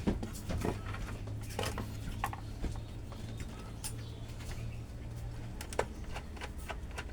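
Scattered light clicks and knocks, as of things being handled, over a low steady hum that stops about five and a half seconds in.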